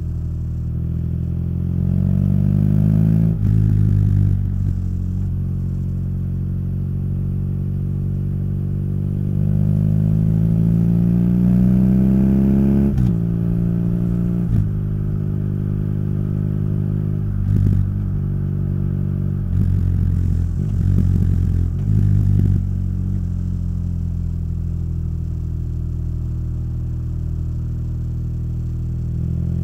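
Motorcycle engine and exhaust under way, accelerating and shifting up: the note climbs, drops sharply at a gear change about 3 seconds in, then climbs again until another shift about 13 seconds in. Several brief throttle dips and blips follow before the note settles into a steady cruise for the last few seconds.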